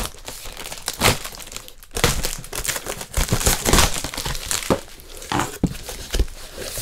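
Parcel packaging being torn open and crumpled by hand: irregular crinkling and rustling with sharp crackles and a few louder rips.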